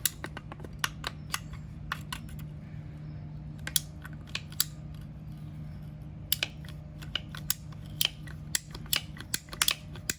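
Irregular sharp clicks and snaps in small clusters as a length of PVC pipe is cut to size and handled, with a steady low hum underneath.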